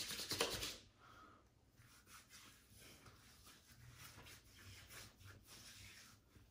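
Palms rubbing together with aftershave balm between them, a soft rustling hiss that stops about a second in, followed by fainter rubbing and light touches on the skin.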